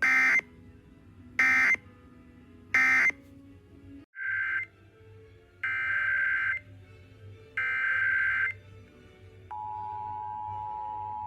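Emergency Alert System SAME data bursts: three short squawks of the end-of-message code, then three longer header squawks of the next alert. About nine and a half seconds in, the steady EAS two-tone attention signal (853 and 960 Hz) begins.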